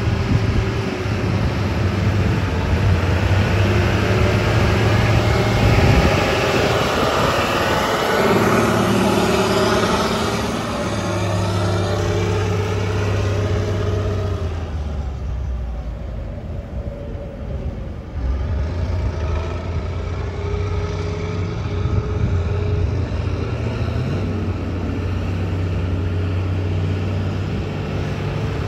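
Caterpillar D350D articulated dump truck's diesel engine running as the truck drives past on gravel, its engine note shifting in pitch a few times. Loudest around six to ten seconds in, with tyre noise mixed in, then briefly quieter as it turns away.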